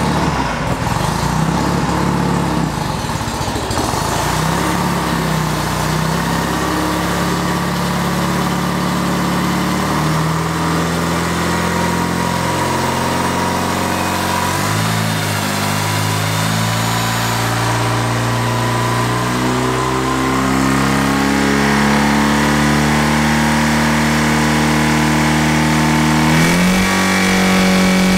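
Motocross motorcycle engine running under load with its rear wheel spinning on a homemade load stand, held at high throttle for carburettor mixture tuning. Its note shifts in steps every few seconds, with a sharp rise near the end.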